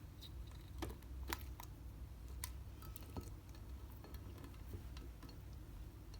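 Slime being kneaded and mixed by hand, giving irregular small clicks and pops as air pockets in the slime burst.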